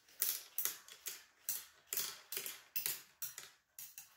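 Steel box-spring wire clicking and scraping as a spiral lacing wire is twisted and wound off the coil springs by hand, a run of irregular metallic clicks about three a second.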